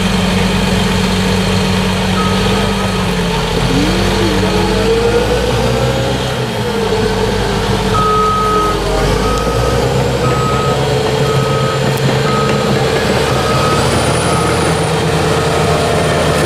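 Heavy diesel engine of a bulldozer running, its pitch wavering up and down, with a reversing alarm beeping about once a second through the second half.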